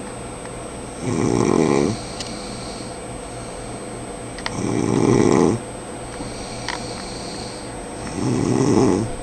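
A sleeping man snoring: three loud, rasping snores on the in-breath, each about a second long and about three and a half seconds apart, with softer breaths between.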